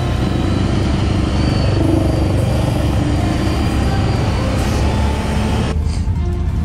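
Engine of an off-road quad running steadily with a deep rumble; the higher hiss drops away about six seconds in.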